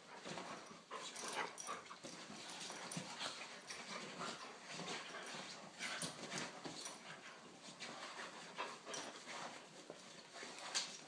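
A small dog and a large long-haired dog play-wrestling on a couch: a quick, irregular run of short mouthing, sniffing and scuffling noises.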